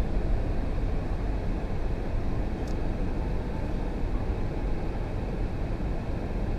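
Steady low rumbling outdoor noise that flickers in loudness, with a faint tick about two and a half seconds in.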